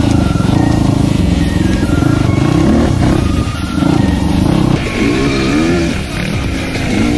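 Dirt bike engine running under riding load, revving up and down, with its pitch rising and falling several times about five seconds in.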